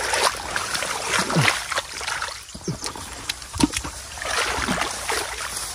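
Hands splashing and sloshing through shallow muddy water, feeling along the mud for fish. It is an irregular run of wet splashes with a few short, falling plops.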